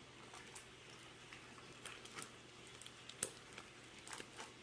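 Faint, sticky squishing and small clicks of a failed homemade slime being handled and pulled by hand, with one sharper click about three seconds in.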